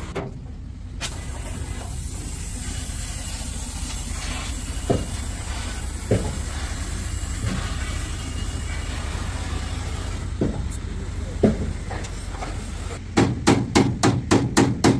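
Hammer blows on the sheet-steel bodywork of a truck cab: a few separate knocks over a steady low hum, then about two seconds from the end a fast run of blows, about five a second.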